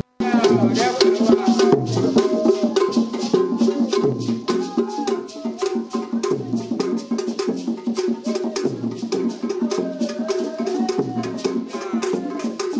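Music of fast wooden-sounding percussion over a low drum beat that falls about every second and a half, with a voice singing in short phrases over it.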